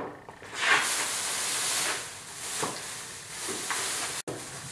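Thin plastic masking sheet rustling and crinkling as it is handled and draped over a truck door, loudest in the first two seconds, then softer.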